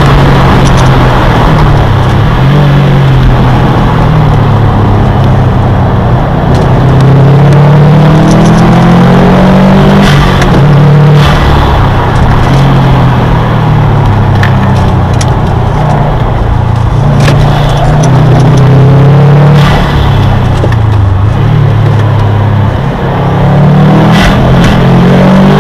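Subaru WRX STI's turbocharged flat-four engine under hard driving on a race track, heard from inside the cabin, its revs climbing and dropping again and again.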